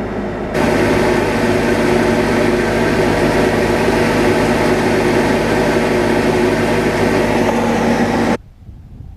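A large farm machine's engine running steadily at constant speed, a dense hum of many even tones. It cuts in suddenly about half a second in and stops abruptly near the end.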